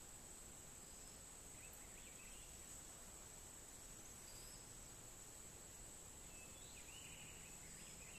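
Near silence, with a faint steady high-pitched insect drone and a few faint bird chirps.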